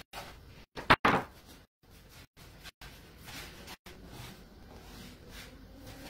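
Hands rolling gnocchi dough into a rope on a floured wooden board, with two sharp knocks on the board about a second in.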